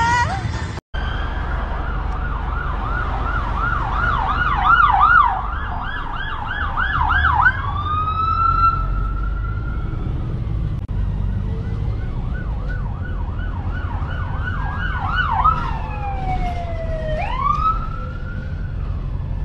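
Police siren switching between a fast yelp of about two to three sweeps a second and a slower rising-and-falling wail, over a steady low rumble of vehicle noise.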